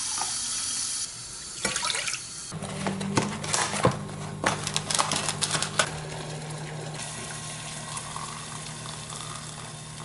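Kitchen tap running water into a mug, shut off about a second in, then the clatter of a mug and saucepan being set down on an induction hob and a steady low hum from the hob heating water in the saucepan.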